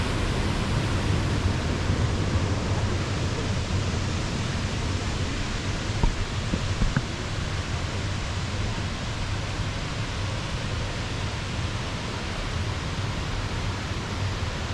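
Steady rushing roar of a tall waterfall heard from its base, a constant noise with a deep rumble underneath.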